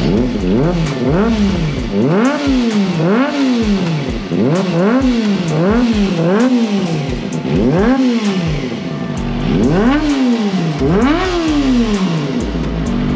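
Kawasaki Ninja ZX-25R's 250 cc inline-four being revved again and again through a Villain C36 aftermarket slip-on muffler. Each throttle blip rises quickly in pitch and falls back, about once a second, with a deep, bassy exhaust note.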